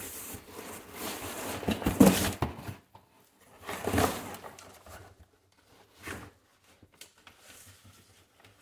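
Cardboard and crinkled paper packing rustling and scraping as a long white cardboard box is pulled out of a shipping carton. It comes in bursts: loudest about two seconds in, again at four seconds, then fainter handling noises.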